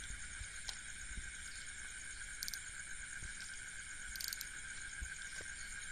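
Steady high-pitched chorus of night insects, with two faint brief clicks about two and a half and four seconds in.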